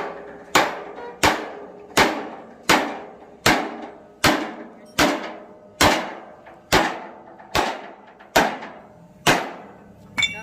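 Hammer striking metal in a steady rhythm, about one blow every three-quarters of a second, each blow ringing briefly after it lands.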